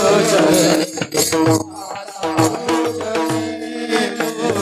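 Devotional bhajan music: a held sung note ends about a second in. Hand drum, jingling hand cymbals and a steady held drone then carry on between the sung lines.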